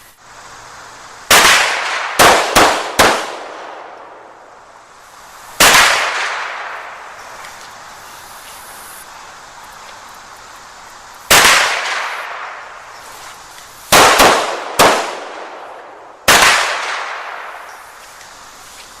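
Nine handgun shots in uneven strings, each followed by a long ringing echo: a fast string of four about a second in, a single shot a few seconds later, then four more spaced out over the last third.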